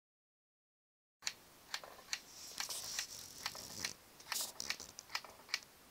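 Sigma 120-300mm f/2.8 OS telephoto lens making an abnormal noise: irregular sharp clicks, about two a second, starting a second or so in. A high hissing whir joins them for about a second and a half in the middle.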